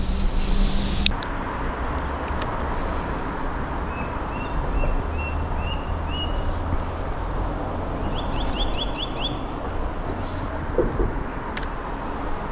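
Steady low rumble with a bird calling over it: a string of short chirps about four to seven seconds in, then a quick run of five rising notes around eight to nine seconds in. A few sharp clicks.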